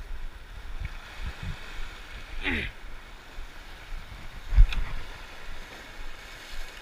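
Small waves washing and breaking against lava rocks, with wind buffeting the microphone. A sharp thump about four and a half seconds in is the loudest sound, and a brief voice-like call comes about two and a half seconds in.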